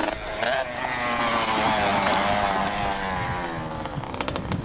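Small motocross bike's two-stroke engine revving hard as it passes close by and pulls away, its pitch rising and falling with the throttle. A few sharp clicks near the end.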